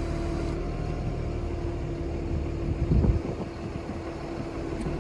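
Steady running drone of a tractor-driven KC Bruiser 1250 roller mill set-up, with a constant hum and a brief low rumble about three seconds in.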